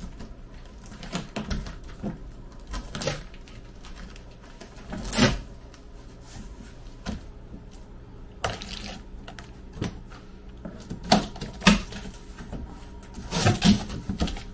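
Corrugated cardboard box being opened: packing tape cut along the top seam and the flaps pulled back, giving scattered scrapes, rustles and sharp knocks. The loudest knock comes about five seconds in, with a cluster of them near the end.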